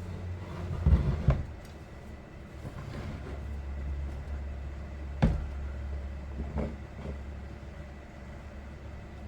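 Knocks and clatters of tools and chainsaw parts being handled during cleaning, a cluster about a second in and a single sharp knock about five seconds in, over a steady low hum.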